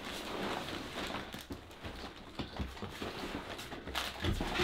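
Quiet rustling and light knocks of a large white cardboard box and its cardboard inserts being handled and opened.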